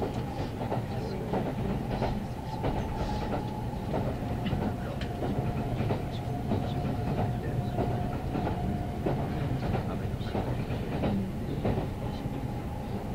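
Kintetsu 9030 series electric train running at speed, heard from inside the passenger car: a steady rumble with the wheels clicking over rail joints and a faint steady whine.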